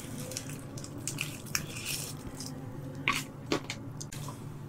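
Close-miked food handling: soft wet squishes and scattered small clicks as chopsticks lift slices of tuna sashimi and a gloved hand holds a seaweed wrap with sprouts.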